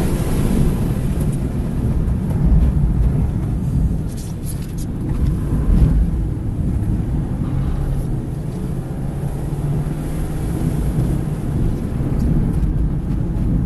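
Suzuki Swift Sport ZC33S's 1.4-litre turbocharged four-cylinder running hard on track, heard from inside the cabin with road and wind noise. The car slows hard for a slow corner, then accelerates out of it.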